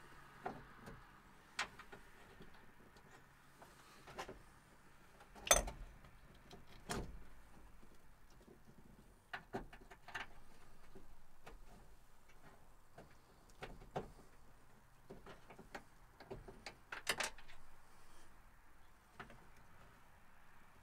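Scattered metallic clicks and knocks of hand tools and parts being handled during a starter repair, with two louder knocks about five and seventeen seconds in.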